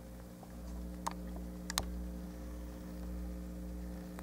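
Steady low hum of background noise, with two faint clicks about one and almost two seconds in.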